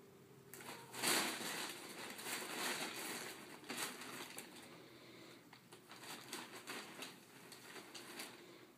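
Crumpled brown packing paper crinkling and rustling as a cat moves about on it inside a cardboard box. It starts about half a second in, is loudest a second in, carries on in fits and starts and dies away near the end.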